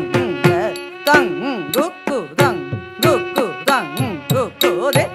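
Carnatic dance music: a heavily ornamented melody that slides quickly up and down in pitch over a steady held drone note, cut through by sharp, regular percussion strokes.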